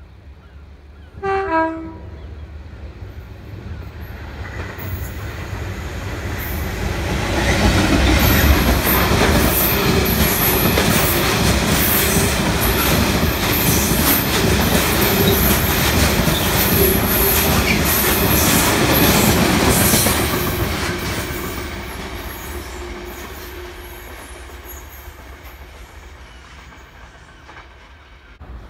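A GBRf Class 66 diesel locomotive gives a brief horn blast about a second in, then passes at speed hauling a long rake of loaded ballast wagons. The train noise builds, stays loud for about a dozen seconds as the wagons roll by over the track, then fades.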